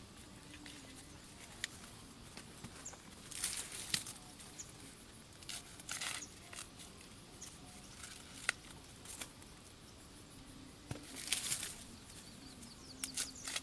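Bursts of rustling and crackling, like leaves or stalks being pushed through or handled, coming every second or two with a few sharp snaps.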